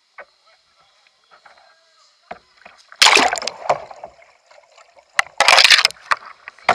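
Water splashing and rushing over a kayak and its deck-mounted camera as the paddler capsizes about three seconds in and rolls back upright about two seconds later, a kayak roll. A sharp knock near the end.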